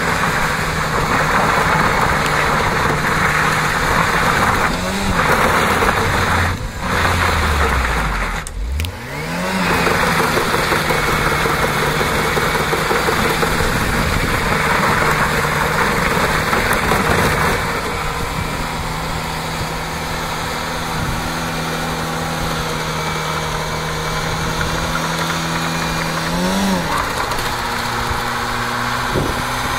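Škoda pickup's 1.3-litre four-cylinder petrol engine held at high revs during a burnout, with a tyre spinning on the ground in a loud hiss. The revs dip and climb back twice, about five and eight seconds in, then hold steady. The tyre hiss eases a little past halfway.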